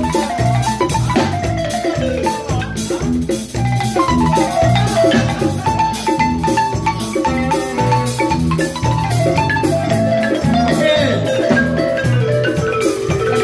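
Live band music led by a balafon: fast wooden mallet runs, many falling in pitch, over a steady bass line and drums.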